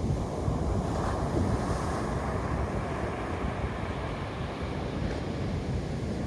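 Steady rushing noise of wind and water, with a low rumble of wind on the microphone; it swells about a second in.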